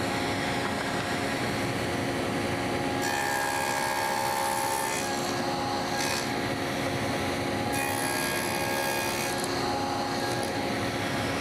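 Table saw spinning a dado blade stack with a steady motor hum, cutting a tenon in a 5/8-inch board in successive passes. The cutting noise rises about three seconds in, again briefly near six seconds, and once more from about eight to nine and a half seconds.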